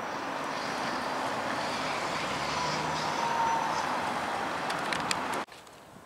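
Steady noise of passing motor traffic, swelling a little in the middle with a faint, slightly falling whine. It cuts off suddenly about five and a half seconds in, leaving much quieter outdoor background.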